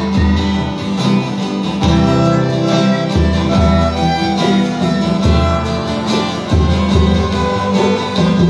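Live acoustic folk band playing: a violin carries the melody over strummed acoustic guitars, with low beats recurring every second or two.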